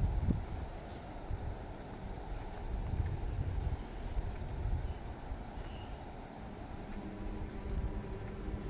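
A cricket chirping steadily at night in a fast, even rhythm of high pulses, over a low rumble of noise on the microphone.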